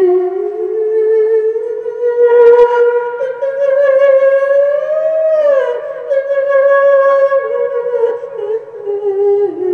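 A man's voice through a microphone holding one long, drawn-out sung note of a chanted Thai poem, wavering slowly in pitch, swelling and bending up and then down about five seconds in. A brief knock about two and a half seconds in.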